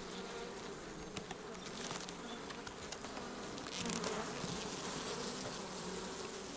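Honeybees buzzing steadily over an open hive while a brood frame thick with bees is lifted out.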